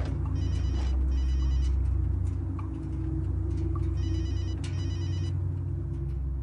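A telephone ringing with a trilling double ring, heard twice about three and a half seconds apart, over a low steady drone.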